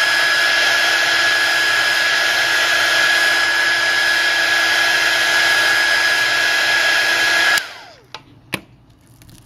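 Handheld electric hot-air blower running steadily with a constant fan whine, warming a phone screen to loosen its glue. About seven and a half seconds in it is switched off and winds down with a falling whine, followed by a couple of faint clicks.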